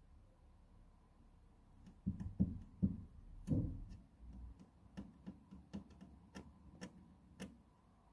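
A series of sharp taps: four louder knocks starting about two seconds in, then lighter ticks at uneven spacing of about half a second.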